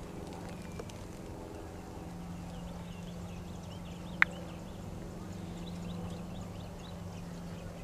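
Quiet outdoor background: a steady low hum with faint, short, high chirps, and one sharp click about four seconds in.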